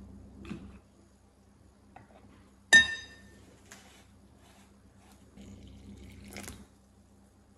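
One sharp, ringing clink against a glass mixing bowl a little under three seconds in. Near the end, water is poured from a small glass into the flour in the bowl: a short splash.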